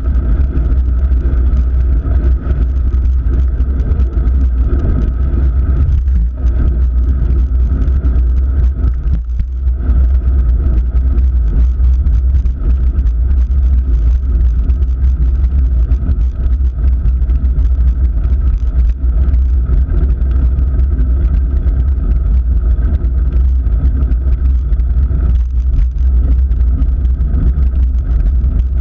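Loud, steady low rumble of wind and road vibration picked up by a GoPro mounted on the handlebars of a moving road bicycle.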